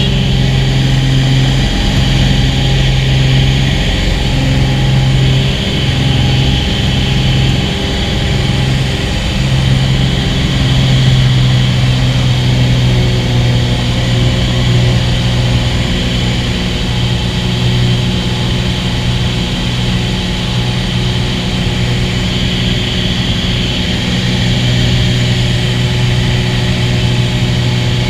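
Cessna 206's piston engine and propeller droning steadily at a constant pitch.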